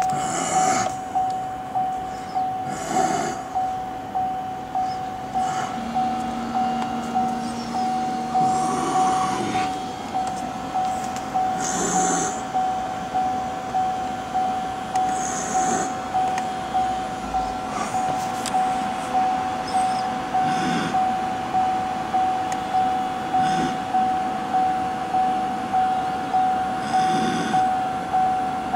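Chevrolet Volt's in-car chime repeating evenly, about one ding every 0.7 seconds, each a single tone that rings and fades.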